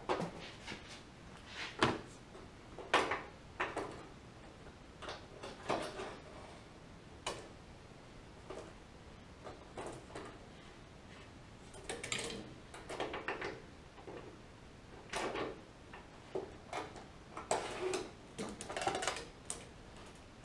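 Hydraulic hoses and metal fittings being handled and fitted by hand: irregular light clicks, clinks and short scrapes, with a busier cluster about twelve seconds in and again near the end.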